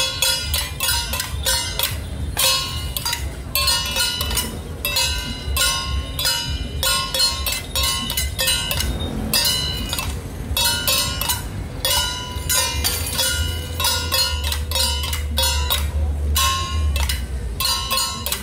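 Traditional Taiwanese temple-procession percussion: gongs and cymbals struck in a quick, uneven rhythm, several strokes a second, each ringing briefly, over a low rumble. It accompanies a temple-general (Ba Jia Jiang) troupe's performance.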